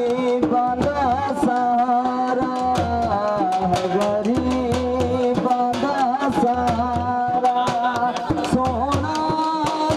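Male voice singing a devotional qasida into a microphone in long, ornamented held notes, over a hand-drum accompaniment that keeps a steady beat.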